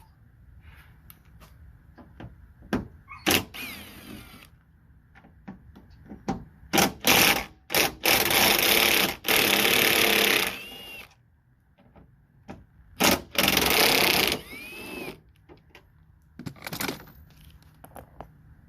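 Cordless drill-driver with a T30 Torx bit backing out the door latch screws: four short runs, the longest about two and a half seconds, each followed by a short whine as the motor spins down, with clicks of the tool and parts being handled in between.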